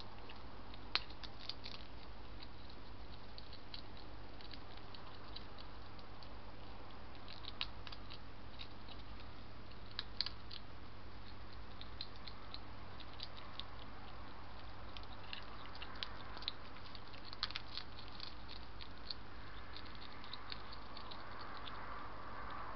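Hedgehogs crunching dry food at a feeding dish: irregular small crisp clicks and ticks, a few sharper ones standing out, over a steady low hum.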